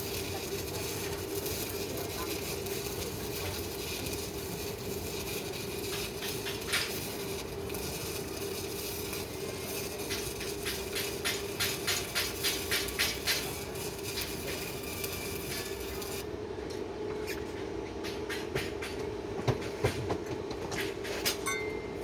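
Arc welding on a hydrant pipe: a steady crackling hiss over a steady hum, with a run of sharp rapid cracks midway. About 16 s in the hiss cuts off as the arc is broken, leaving the hum and scattered sharp clicks.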